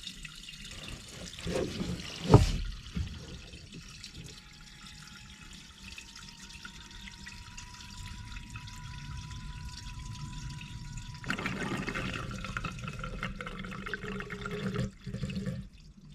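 Fuel pouring slowly from a jerry can whose spout has no working vent, a thin stream trickling into a tank. A single sharp knock comes about two seconds in, a faint thin tone rises slightly through the middle, and the pour gets louder from about eleven seconds in.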